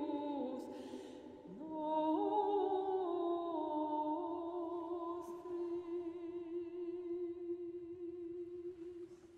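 Wordless female singing with vibrato. The line sinks, swoops upward about a second and a half in, then settles on one long held note that slowly fades away.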